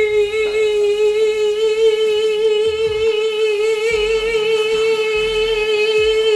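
A woman's voice holding one long sung note, with a slight waver in pitch.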